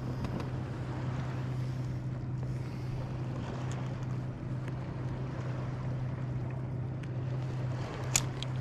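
Kayak under way: a steady low hum from its drive, with water and wind noise, broken briefly twice. A single sharp click near the end.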